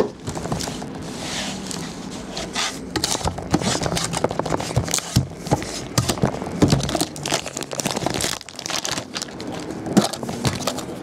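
Plastic wrapping crinkling and tearing as trading-card packaging is unwrapped by hand, with irregular clicks and knocks from hard card boxes and cases being handled.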